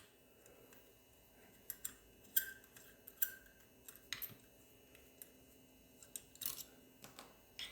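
Faint, scattered clicks and short scrapes of a small hand tool being worked on the screws of a metal top plate, with a brief squeak twice.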